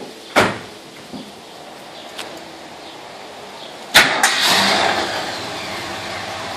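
Classic Ford Mustang engine starting through a homemade performance exhaust: a sharp bang about half a second in, then about four seconds in the engine fires with a loud burst and keeps running, settling down.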